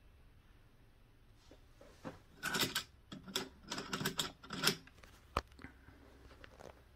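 Metal camera-rig accessories being handled: a quick run of clicks and knocks over about three seconds as a ball-head mount with a phone clamp is worked loose and lifted off the camera cage, then one sharp click.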